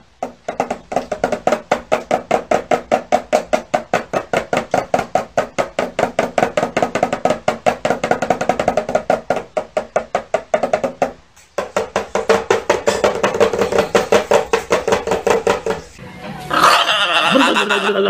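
Toy tin drum tapped rapidly and evenly by a cockatiel's beak, about four or five ringing taps a second, pausing briefly about eleven seconds in and then going on. Near the end the tapping gives way to a sliding, voice-like sound.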